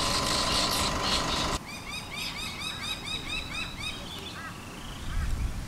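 A steady noisy hum with a thin steady tone cuts off about a second and a half in. Then birds call outdoors: a fast run of short, high, arched chirps, about five a second, followed by a few lower chirps.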